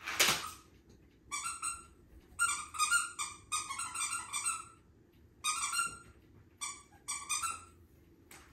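A squeaky dog toy squeezed over and over in quick runs of high squeaks. A short bark from the dachshund puppy comes at the very start and is the loudest sound.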